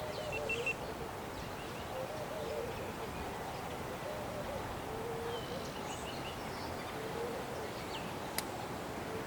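Doves cooing over and over in low, wavering phrases every second or two, with faint higher bird chirps. A single sharp click comes near the end.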